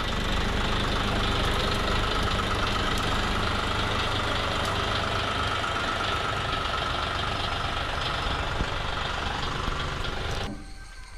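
Tractor engine running steadily; the sound cuts off sharply near the end.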